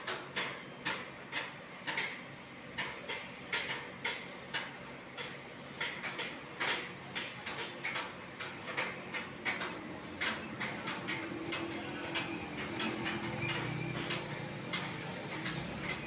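Repeated sharp metallic knocks, like hammer blows on steel scaffolding and formwork, come irregularly about twice a second. In the second half a low engine rumble rises under them.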